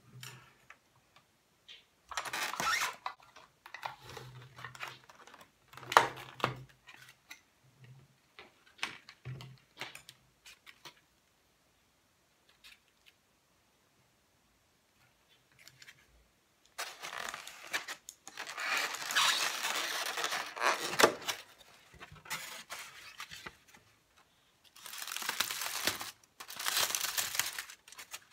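Takeout food packaging being unwrapped: clicks and short crackles of clear plastic containers and lids being handled, then, after a quiet pause, long stretches of crinkling and rustling as aluminium foil is pulled open.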